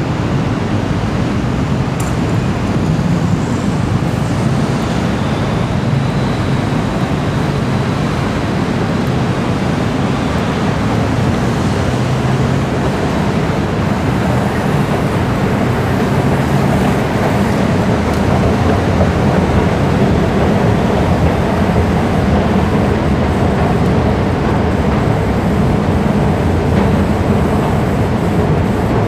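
Steady city ambience: the rumble of road traffic, giving way in the second half to the drone of running escalators as the recording moves into the station entrance and down the escalator.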